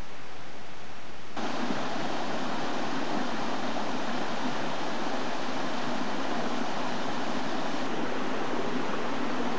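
Steady rushing outdoor background noise with no distinct events. It jumps abruptly louder about a second and a half in and changes slightly again near the end.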